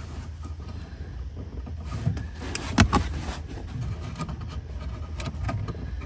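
Plastic clicks and rattles of a tail-light bulb socket being pinched and twisted out of its housing, with the sharpest click about three seconds in, over a steady low hum.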